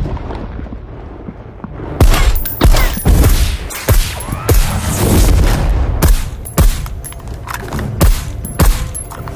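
Gunfire sound effects: the low rumble of a preceding blast dies away over the first two seconds, then a volley of single gunshots follows at uneven spacing, roughly one or two a second.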